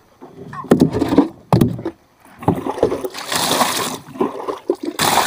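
Water splashing and sloshing around a small boat, with a few sharp knocks on the hull in the first two seconds and louder bursts of splashing later on.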